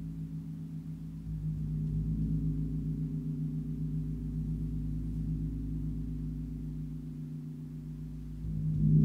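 Large gong tuned to G# (51.91 Hz), played with a soft mallet near its centre in gentle strokes: a low, steady, wavering hum that swells about a second in and again near the end.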